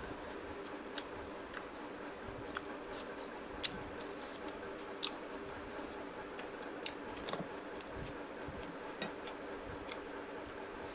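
A person chewing a mouthful of soft food with the mouth slightly open: scattered wet mouth clicks and lip smacks, about a dozen sharp ones, over a steady low hum.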